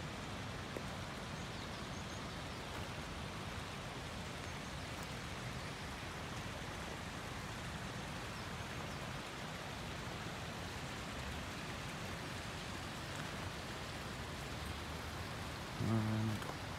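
Steady, even rush of running water from a spring. A short voice sound breaks in near the end.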